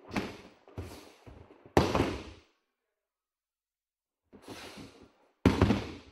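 Aikido practice on a mat: short swishes and thuds from gi and hakama, bare feet and bodies moving. The loudest thud comes about five and a half seconds in, as a thrown partner lands on the mat in a breakfall. There is a silent gap in the middle.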